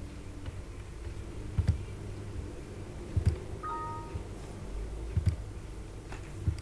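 Several sharp clicks a second or two apart, typical of a computer mouse being clicked, over a low steady hum. A brief two-note falling tone sounds near the middle.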